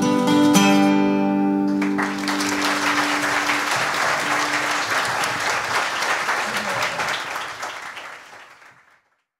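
Acoustic guitar playing the closing notes of a song, its last chord ringing on as audience applause breaks out about two seconds in. The applause fades away near the end.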